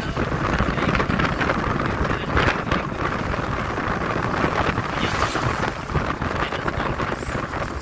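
Wind buffeting the microphone in the open bed of a moving pickup truck, with the rumble of the truck and road underneath. The noise is loud and steady, with gusty swells.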